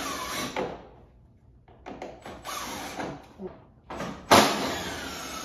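Hard plastic scraping and sliding with faint squeaks, in two bursts: one at the start and a louder one about four seconds in that begins with a sharp knock. The sound fits plastic snowmobile body panels being worked loose and moved.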